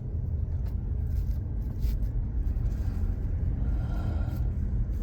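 Steady low rumble of a running motor, with a few light knocks and scrapes.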